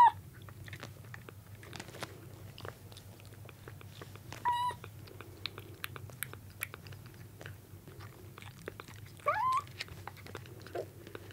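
Bottle-fed kittens mewing while feeding: a short high mew at the start, another about four and a half seconds in, and a rising mew about nine seconds in, the kittens jostling for the milk bottle. Between the mews come small wet clicks of a kitten suckling on the bottle's nipple.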